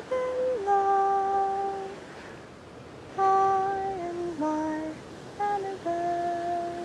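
A woman humming a slow, wordless tune in long held notes, with a short pause partway through.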